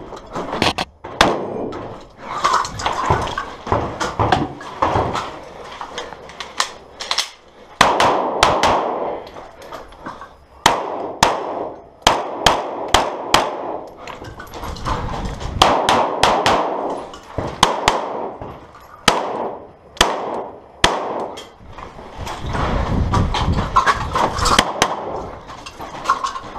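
Close-range gunfire: many sharp shots in quick strings with short pauses between them, each ringing on briefly. A shotgun fires first, and a handgun fires near the end.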